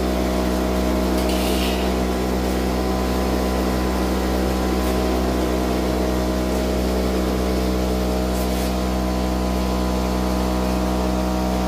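Home-built cotton candy machine running: its electric motor spinning the gas-heated teflon-and-brass head with a steady, even hum.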